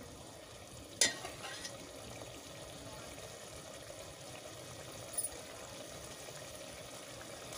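Chopped tomato-onion masala sizzling softly as it fries down in oil in a steel pan, with one clink of the stirring spoon against the pan about a second in.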